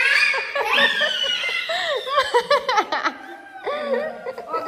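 Young children squealing and laughing excitedly, with a run of quick giggles about halfway through.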